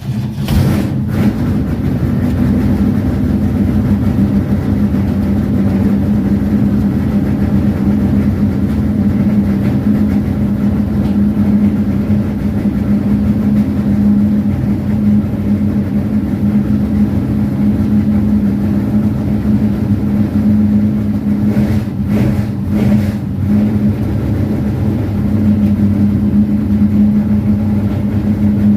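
A vehicle engine running at a steady speed, giving a loud, even drone that holds the same pitch throughout, with a few brief disturbances about three-quarters of the way in.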